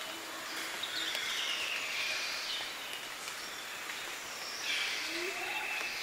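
Highland rainforest morning ambience: faint bird calls over a steady hiss of the forest, with a low repeated note in the first second and short rising calls near the end.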